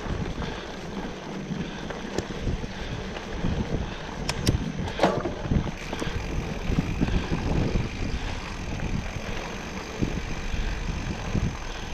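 Wind buffeting the microphone of a moving bike over a steady low rumble, with a few sharp clicks about four to five seconds in.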